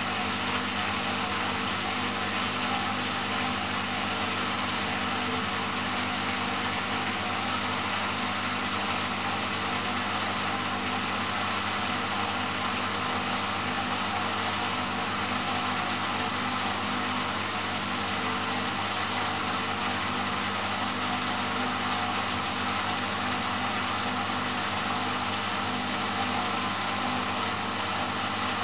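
Candy GrandO Plus washing machine running on its wool cycle, a steady mechanical hum with a constant whine over a rushing noise.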